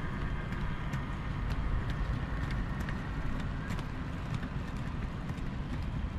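A train running along the track: a steady low rumble with scattered sharp clicks, and faint high ringing tones that fade out over the first few seconds.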